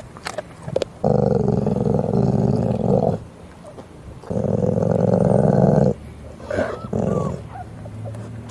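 Adult pit bull growling low and rough: two long growls of about two seconds each and a short third one, a warning to the puppies crowding close while she chews, with a few crunching chews in between.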